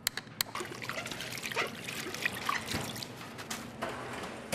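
A thin stream of liquid trickling and splashing, with many small irregular clicks and spatters.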